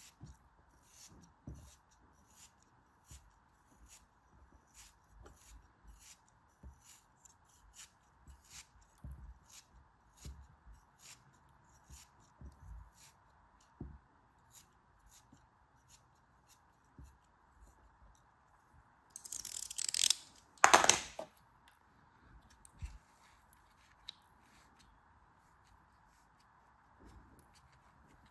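Hands unpacking packaging: a run of light taps and clicks, then a loud burst of tearing or crinkling ending in a sharp snap about twenty seconds in.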